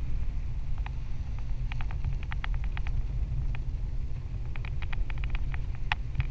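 Wind buffeting the microphone in a parasail flight: a steady low rumble, with bursts of small, quick clicks and ticks in the middle and near the end.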